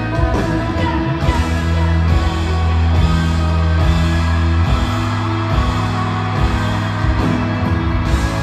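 Live concert music from a pop-rock band. The drums and full band come in at the start over a sustained low chord, with guitar over a steady beat.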